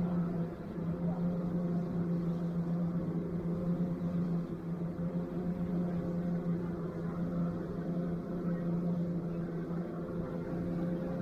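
Fishing boat's engine running steadily under way, a constant low hum with a hiss of rushing water from the wake.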